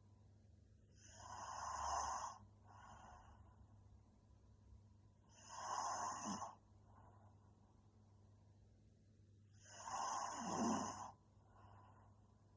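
A young woman snoring in her sleep: three snores about four seconds apart, each followed by a fainter breath.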